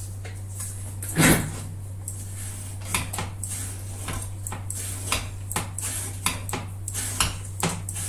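Steel knife blanks being handled and set down on a hard surface: one heavy knock about a second in, then a run of light metallic clinks, several a second.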